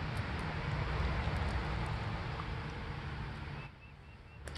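Rubbing, rustling handling noise from a hand and forearm working right against the microphone, which stops abruptly about three and a half seconds in. A single short sharp click near the end.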